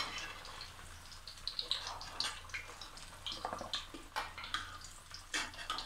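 Sweet potato slices deep-frying in hot oil in a stainless steel kadai: a steady crackle of small irregular pops and sizzles. A few sharper knocks come from the metal slotted spoon working in the pan.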